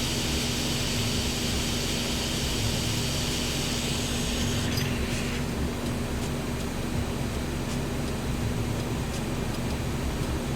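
Hot air rework station's handpiece fan blowing in cooldown mode after the handle is docked in its base: a steady rushing hiss over a low hum. The upper part of the hiss drops away about five seconds in.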